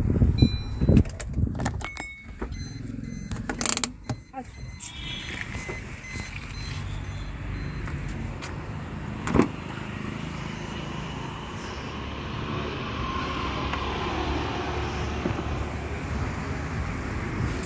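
Steady car running noise, with several clicks and knocks during the first four seconds.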